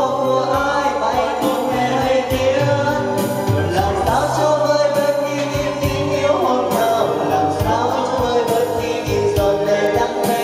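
Amplified pop music: a singer at a microphone over a backing track with a steady beat.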